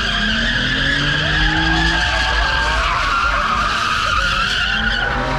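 Car tires squealing continuously as a car spins donuts on asphalt, a steady high-pitched screech. The engine revs underneath, its note climbing over the first couple of seconds.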